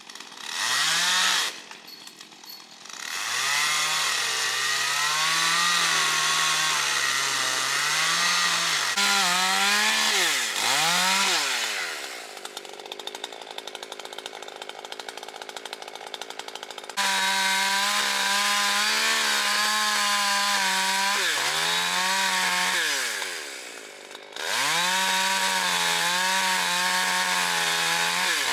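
Two-stroke chainsaw revving to full speed and cutting, its pitch rising and falling with the throttle. It drops back to a quieter idle for several seconds midway, then goes straight back to full throttle.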